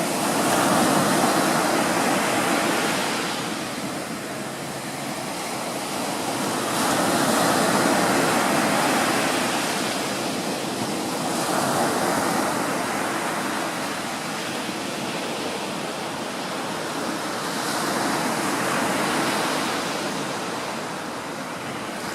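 Small waves breaking and washing up the beach, the surf swelling and fading every several seconds, with a faint steady hum underneath.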